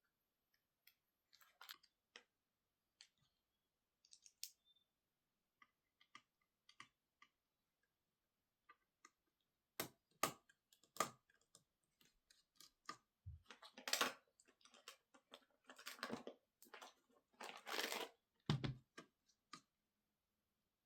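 Scattered small clicks and taps, then from about ten seconds in louder clicks and several longer scraping rustles: small tools and parts being handled while a MacBook Pro laptop is worked on.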